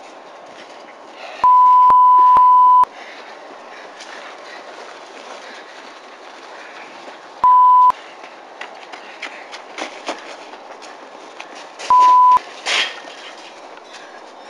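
Three loud electronic bleeps at one steady pitch, a long one followed by two short ones, over a steady hiss. A short, sharp noise comes just after the last bleep.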